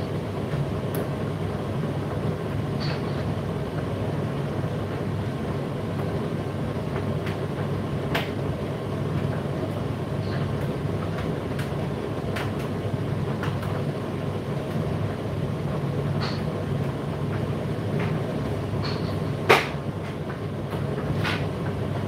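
Indesit IDC8T3 condenser tumble dryer running mid-cycle: a steady hum from the turning drum and fan, with scattered light clicks and knocks from the tumbling load and one louder knock near the end.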